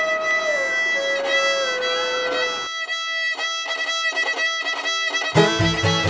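Old-time string-band music: a fiddle plays alone, sliding between long notes at first and then moving through quicker separate notes. Near the end a low, steady rhythm comes in under it as the rest of the band joins.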